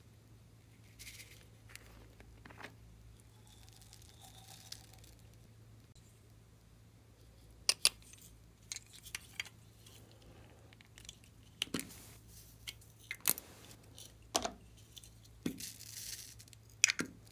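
Small hard-plastic containers handled and opened: faint rustling at first, then a string of sharp plastic clicks and taps in the second half, with a soft crinkling rustle near the end.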